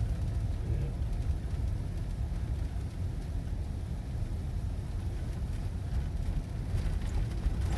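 Steady low rumble of engine and road noise inside the cabin of a moving vehicle.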